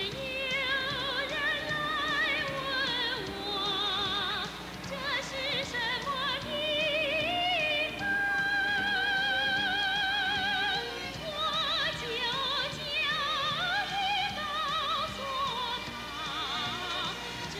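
Music with singing: a voice with a strong, wide vibrato moving between notes, and a long held note about eight seconds in.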